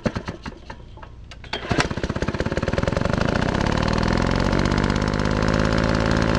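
A small engine firing unevenly in separate pops for the first couple of seconds, then catching with a louder pop about two seconds in and running steadily.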